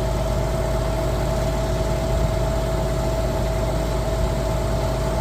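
Concrete pump truck's diesel engine idling steadily: a constant low hum with a steady mid-pitched whine over it.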